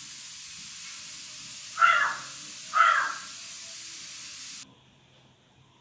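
Two short loud calls of an animal, about a second apart, over a steady hiss that cuts off suddenly near the end.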